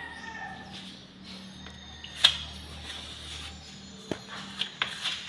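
Metal scraper blade scraping and clicking on a quartz countertop surface, with one sharp click about two seconds in and a few lighter clicks near the end.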